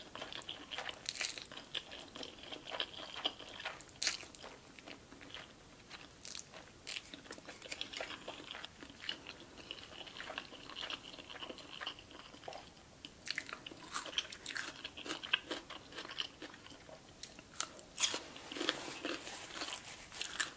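Close-miked eating: slurping and chewing spicy instant noodles, with crisp crunching of a cube of pickled radish about halfway through.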